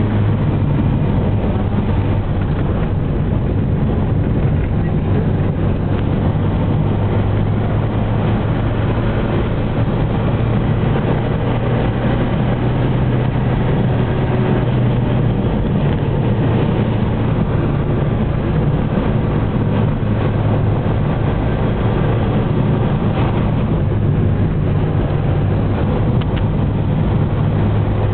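Steady engine hum and road noise from a vehicle driving along a road, with a constant low drone and no breaks.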